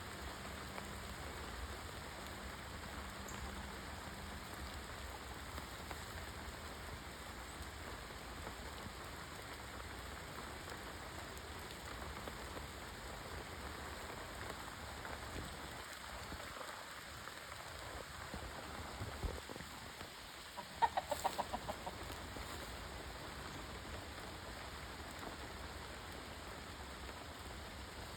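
A chicken giving a quick run of about half a dozen clucks about three-quarters of the way through, over a steady hiss.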